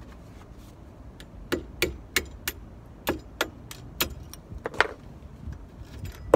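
A series of about a dozen sharp metallic clicks and clinks, a few a second, starting about a second and a half in and stopping about five seconds in: a hand tool working on the Brembo front brake caliper's mounting bolts, which are seized tight.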